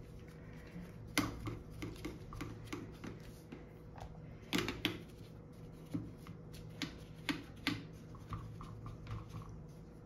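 A brush scrubbing inside an overlock sewing machine's open metal mechanism: irregular light clicks and scratches, with several sharper knocks as it strikes the parts. A faint steady hum sits underneath.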